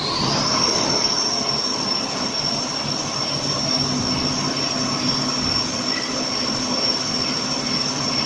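Automatic toilet paper roll making line running: a high machine whine that climbs in pitch at the start and then holds steady, over the steady mechanical noise of the conveyors and drives.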